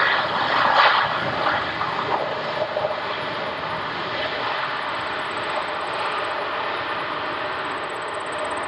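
Boeing 777 freighter's twin jet engines in reverse thrust during the landing rollout, with spoilers up: a loud rushing noise that peaks about a second in, then eases to a steady roar as the jet slows.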